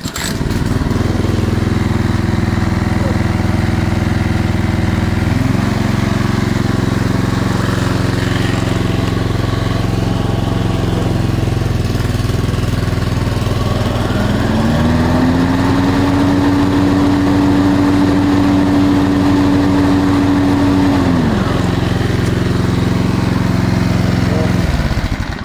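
A newly installed Kohler Command Pro CV224 single-cylinder mower engine fires at once and runs steadily. About halfway through, a higher whine rises in, holds for several seconds and drops away. The engine shuts off near the end.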